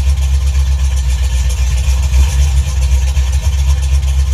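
Chevrolet Caprice's V8 engine idling with a steady deep rumble.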